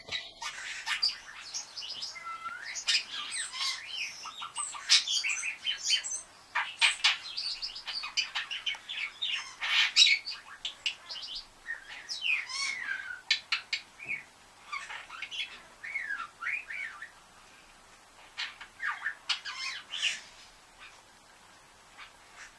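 Male budgerigar warbling: a long, busy stream of chirps, clicks and gliding whistles, which in this bird mixes in mimicked calls of other budgies and starlings and the whistles and water-gurgle sounds of grey parrots. It thins out into sparser bursts over the last few seconds.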